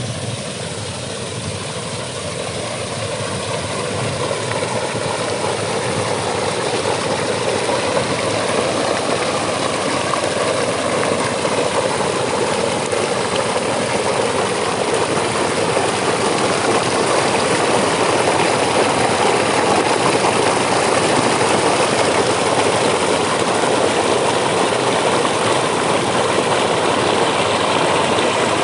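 An engine at a river sand-mining operation running steadily, growing gradually louder over the first twenty seconds or so and then holding even.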